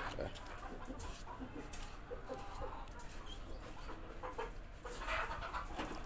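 Chickens clucking with short, scattered calls.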